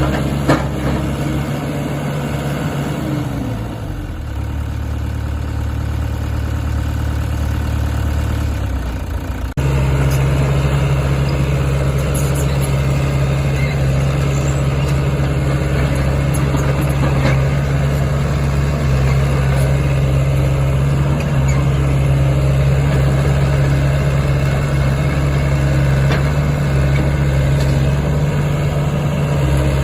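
Diesel engine of a Sany SY75C-9 mini excavator running. Its speed sinks about three seconds in, then steps up suddenly about ten seconds in and runs steady and louder.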